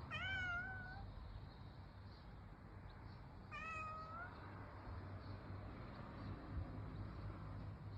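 Calico cat meowing twice: one meow right at the start and a second, ending on a rising note, about three and a half seconds in.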